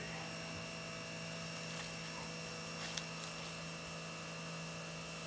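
A steady hum with several fixed tones, and one faint click about three seconds in.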